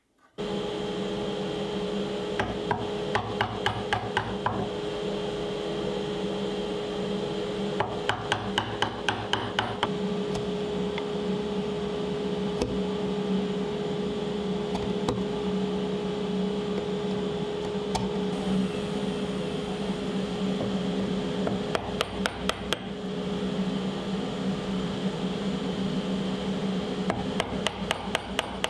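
Quick runs of mallet taps on a chisel, a few strikes a second, chopping out a bowtie recess in a walnut slab, with a few single taps between the runs. A steady machine hum runs underneath.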